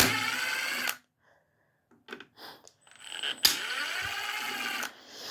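A cordless power driver backing out small cover bolts, running twice: about a second at the start, then again for about a second and a half from about 3.5 s in, spinning up as it starts.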